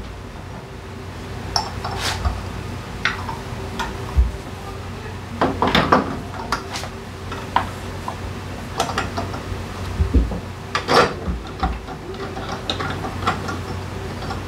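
Metal parts and hand tools clinking and knocking against each other in irregular, separate knocks, busiest about six seconds in and again about eleven seconds in, over a steady low hum.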